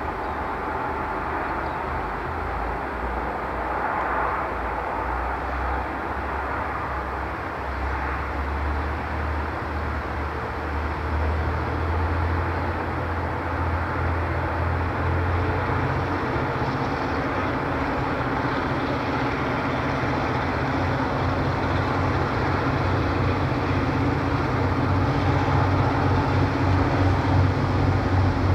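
Two DCP-class diesel-electric locomotives running under power as they approach, a deep steady engine drone that grows louder, most of all near the end.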